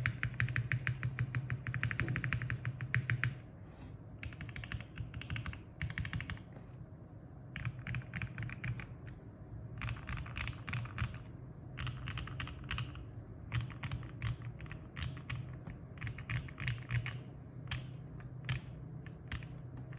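Typing on a Parallel Limited Portal65 mechanical keyboard with lubed OPBlack switches on an FR4 plate, an O-ring mount and GMK keycaps. The first three seconds or so are fast, continuous keystrokes. After that the typing comes in short bursts with brief pauses between them.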